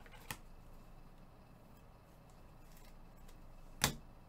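Gloved hands handling trading cards and their box on a table: a light click about a third of a second in, then a sharper, louder knock near the end.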